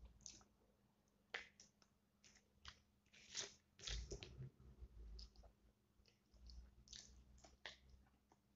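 A person eating fried chicken and rice by hand: faint, irregular chewing and crunching with small clicks, over a low steady hum.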